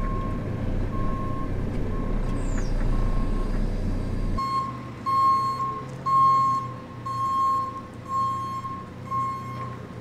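JCB telehandler's diesel engine running while its reversing alarm beeps about once a second. The beeps are faint over the engine drone at first, then grow loud about four seconds in as the engine drone drops.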